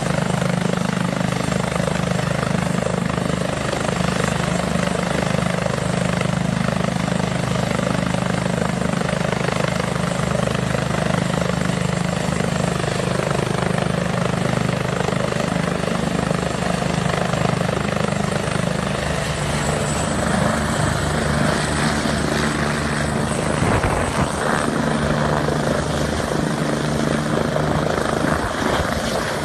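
Eurocopter EC145 rescue helicopter running with its rotors turning: a steady turbine and rotor sound with a rapid rotor beat. About two-thirds of the way through the rotor sound changes as it powers up, and it lifts off near the end.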